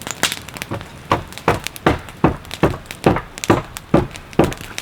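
Quick, evenly paced hammer blows on wood, about two and a half a second, working a misplaced log or board of a log fort back into place.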